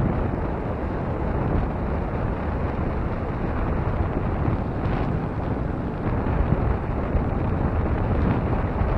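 Steady wind noise buffeting the microphone on the open-air upper deck of a descending cable car. It is a deep, even noise, strongest in the low range.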